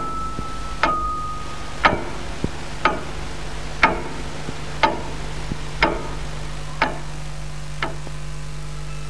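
Clock ticking evenly about once a second, the ticks growing fainter toward the end, over a low steady hum. A held musical note fades out in the first second or so.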